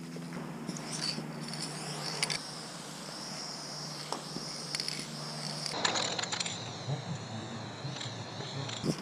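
Aerosol spray paint can hissing as paint is sprayed, with a few sharp metallic clinks.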